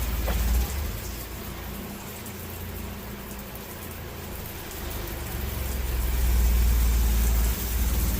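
Small RV water pump running with a steady low hum while water sprays out of the shower head, growing louder about five seconds in. The lines are being pushed through with antifreeze to winterize them, and the water left in them is still coming out.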